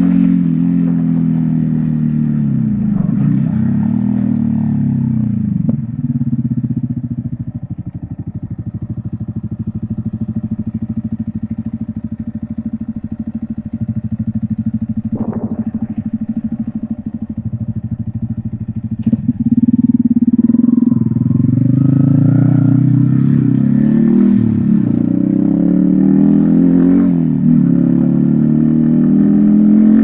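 Yamaha XSR155's single-cylinder engine running through a homemade exhaust, engine speed rising and dipping several times. For a stretch in the middle it runs quieter and steadier at lower revs. About twenty seconds in it picks up louder with more rises and dips. A couple of sharp knocks sound partway through.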